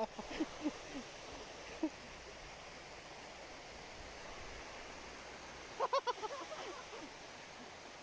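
Shallow stream water rushing over rock ledges, a steady even hiss. Short bursts of people's voices break in at the start and again about six seconds in.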